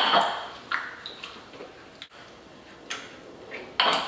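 Wooden pestle pounding chopped peppers, onion, cilantro and tomato in a ceramic mortar to make salsa: about six irregular knocks, some ringing briefly, the loudest right at the start and just before the end.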